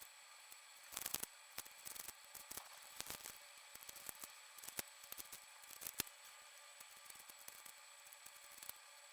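Soft, irregular clicks and crackles from small objects being handled close to the microphone. There is a louder cluster of crackles about a second in and a single sharp click about six seconds in.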